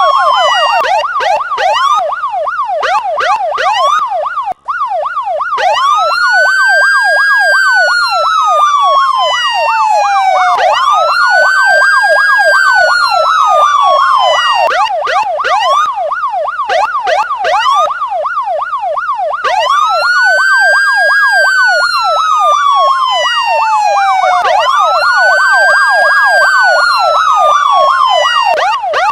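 Electronic police siren: a slow wail that rises quickly and sinks over about four seconds, overlapped by a fast yelp sweeping up and down several times a second. The sound cuts out for an instant about four and a half seconds in.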